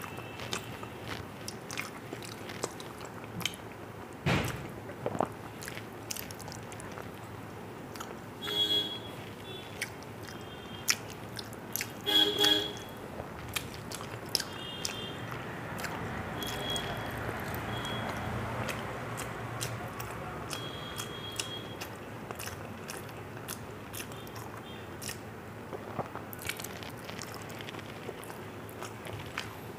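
Close-miked eating sounds: chewing and mouth clicks, with fingers mixing rice and wiping across a steel plate.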